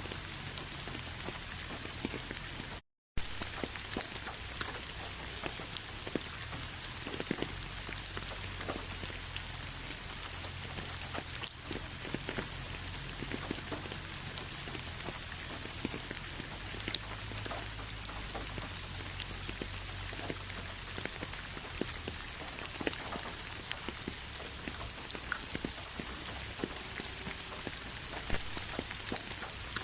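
Steady rainfall, an even hiss dotted with many individual drops clicking as they hit. The sound drops out completely for an instant about three seconds in.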